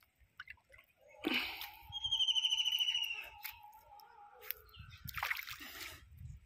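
A high, trilling whistle lasting about a second, falling slightly in pitch, with a brief splash of water near the end.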